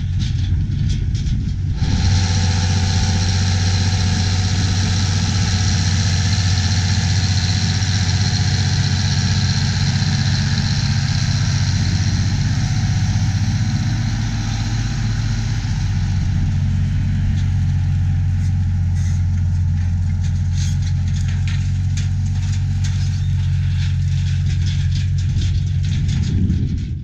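Steady, even-pitched mechanical hum of a running engine or motor with a hiss above it, unchanging throughout and cutting off abruptly at the end.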